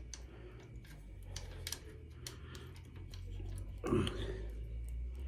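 Small, irregular clicks and taps of brake pads, their spring and the caliper being handled while fitting new pads on an e-bike's rear brake. A short, louder rush of noise about four seconds in.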